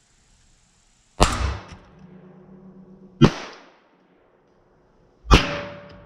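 Three .22 LR pistol shots from a Browning Buck Mark, each a sharp crack with a short tail, about two seconds apart.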